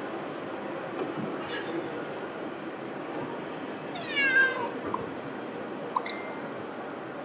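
Domestic cat meowing in protest from its pet carrier in a moving car: one loud, long meow falling in pitch about four seconds in, with a fainter one earlier, over steady road noise.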